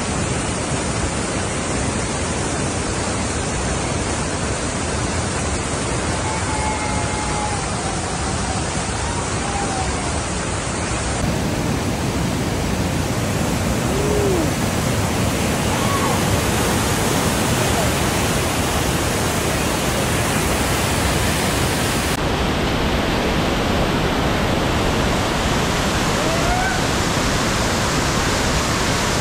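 Rushing whitewater of a steep creek: a loud, steady wash of rapids and falling water.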